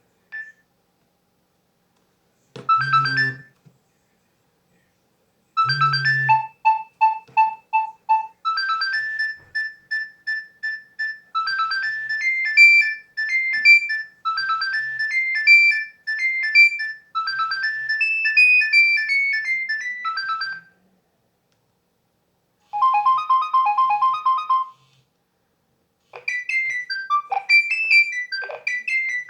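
Nokia 6100 mobile phone playing its built-in ringtones one after another: a brief phrase, then a long beeping melody of about fifteen seconds, then two shorter tunes, with short pauses between them.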